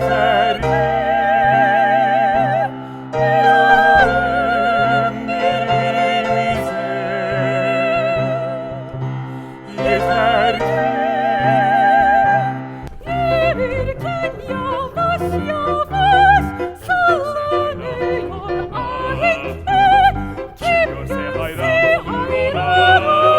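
Operatic singing over musical accompaniment: long held notes with a wide vibrato, turning about halfway through to shorter, quicker notes.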